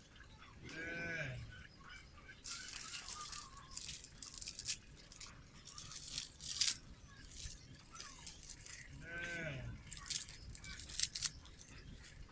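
Dry sticks and twigs snapping and rustling as they are broken by hand and pushed into a small wood fire, in a run of sharp cracks. An animal calls twice, once about a second in and again near the end.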